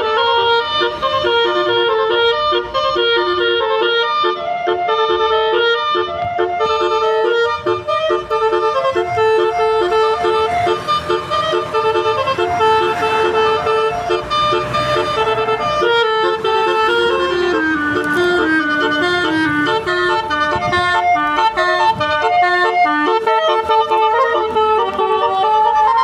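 Telolet horn on a mobil basuri, a multi-tone horn playing a fast melody of stepped reedy notes without a break.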